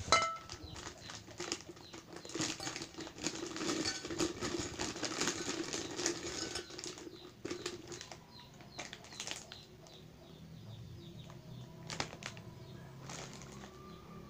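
Fish crackers poured into a tall glass jar: a dense rattle of crisp crackers tumbling against the glass and each other for about seven seconds, then a few scattered clinks. Faint bird chirps in the second half.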